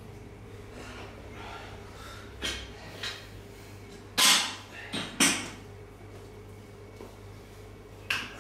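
Barbell bench press being set up: a few short, sharp knocks and bursts, the loudest about four seconds in, over a steady low hum.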